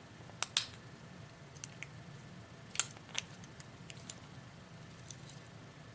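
Small metal clicks and scrapes of a tool prying at a tight, springy retaining clip on the back of a pin-tumbler lock cylinder: a few sharp, irregular clicks, the loudest about half a second in and near three seconds in.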